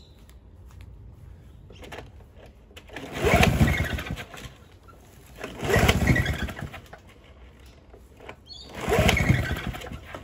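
Victa 160cc two-stroke lawnmower engine being pull-started three times. Each pull cranks it over for about a second and it does not catch; fuel is squirting from its leaking primer bulb cap.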